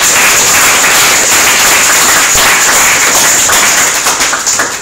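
Audience applauding loudly, a dense patter of many hands clapping that dies away near the end.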